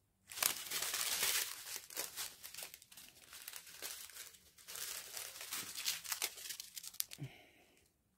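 Small clear plastic zip-lock bags of round diamond painting drills being handled and sorted, their thin plastic crinkling in irregular rustling bursts.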